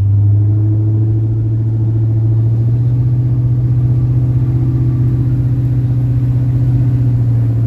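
Steady low drone of a vehicle's engine and road noise heard from inside the cab while driving at an even pace.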